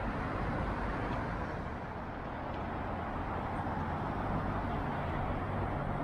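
Steady city road traffic: cars and other vehicles passing on a busy street, a continuous low rumble.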